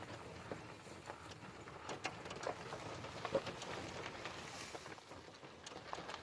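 Irregular light snaps and rustling from a breeding herd of elephants moving close by.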